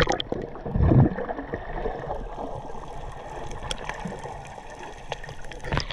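Muffled underwater sound of the sea heard through a submerged action camera: water gurgling and rushing against the housing, with a low thump about a second in and louder splashing near the end.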